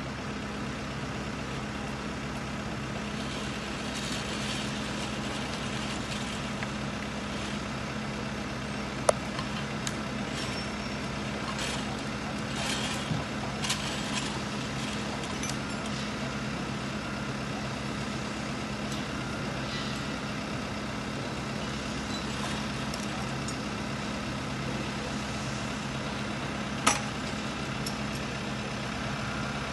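Tractor engine running steadily at a constant speed, with two sharp clicks, one about a third of the way in and one near the end.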